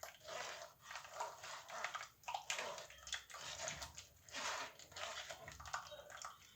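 Blended lemon juice being worked through a strainer to hold back the pulp and peel: repeated scraping swishes, about two a second.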